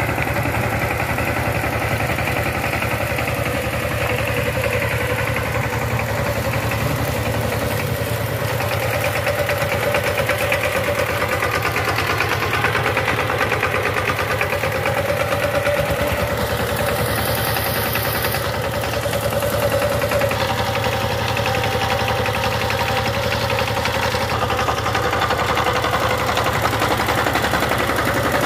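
Power tiller's diesel engine running steadily with a fast, even beat.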